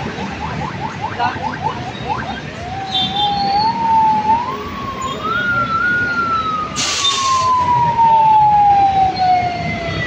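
Ambulance siren: quick repeating yelp chirps at first, then switching to a slow wail that rises for about three seconds and glides slowly back down, over steady road-traffic noise. A short burst of hiss cuts in about seven seconds in.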